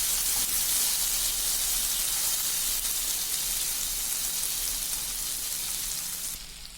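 Masala-coated boiled eggs sizzling in a little hot oil in a pan, a steady frying hiss that fades away near the end.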